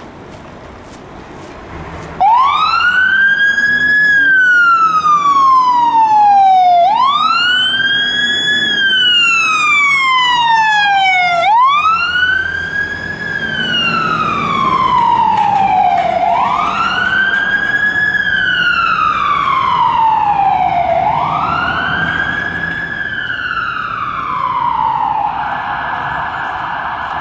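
Electronic siren of a Scania P360 fire engine wailing as it responds to an emergency call. It starts about two seconds in, and each cycle climbs quickly in pitch and falls slowly, repeating about every four and a half seconds. Near the end it changes to a steadier tone.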